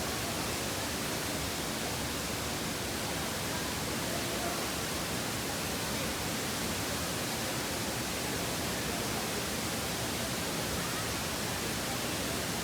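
Steady rushing of a waterfall, an even hiss-like roar with no change in level.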